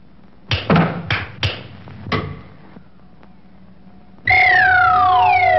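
Cartoon soundtrack sound effects: a quick run of sharp knocks and clatters in the first two seconds, then, after a lull, a loud whistle-like tone that slides steadily down in pitch over a steady held note.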